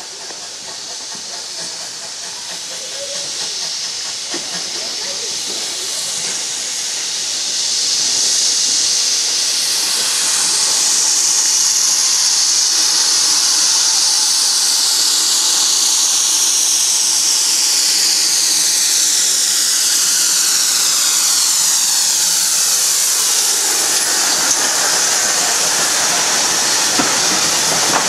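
GWR 57xx class pannier tank steam locomotive hissing loudly with escaping steam as it draws in. The hiss builds over the first ten seconds or so, then holds, with a downward sweep in its tone as the engine passes close by.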